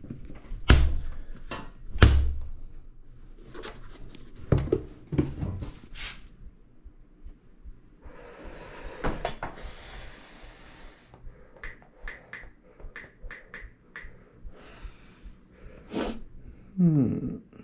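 Thumps, knocks and rubbing as a small rubber tire is worked onto a minibike rim by hand. Two heavy thumps come in the first couple of seconds. A scraping stretch follows in the middle, then a run of light clicks and a short falling squeak near the end.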